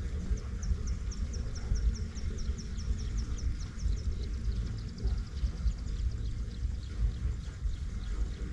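Wind buffeting the microphone in gusts, with a bird calling a rapid series of short, high, downward-sliding notes about five a second. About four seconds in the notes drop a little in pitch and grow fainter.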